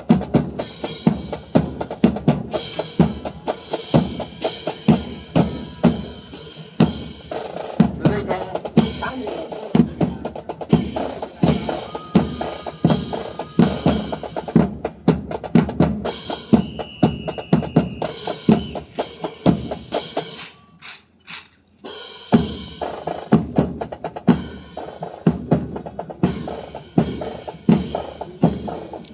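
Precision rifle drill: rifles slapped and clacked and butts and boots thumped in unison, in a steady run of sharp claps and thumps about one or two a second, with a short lull a little after twenty seconds in.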